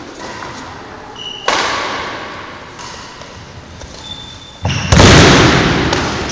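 Bodies thrown onto judo mats and landing in breakfalls: two heavy thuds, each ringing on in the hall. The first comes about a second and a half in, and the second, the loudest, near the end.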